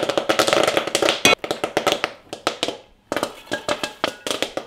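Popcorn popping in a hot lidded stainless steel pot, a quick irregular run of sharp pops with one loud crack a little over a second in. The pops thin out and stop for a moment about three seconds in, then start again as the popped corn is tipped from the pot into an enamel bowl.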